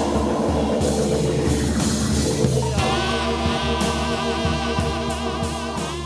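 Band music with sustained Hammond organ chords and drums. A wavering melody line comes in about halfway, and the music starts to fade near the end.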